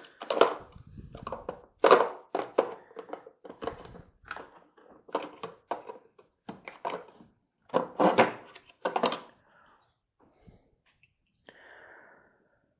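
Hand tools being handled in a plastic tool-set case: a string of irregular knocks and clicks, stopping about nine seconds in.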